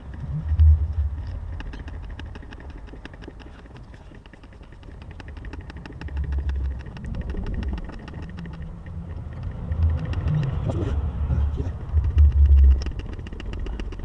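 Hand oil pump being worked, transferring gear oil through a hose into the gearbox filler hole, with a fast run of light ticks in the first half and bursts of low rumbling thumps, loudest about a second in and near the end.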